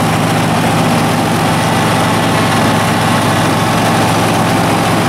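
Craftsman PYT 9000 lawn tractor engine running at a steady pitch with the mower deck engaged, during mowing in reverse using the reverse operating system.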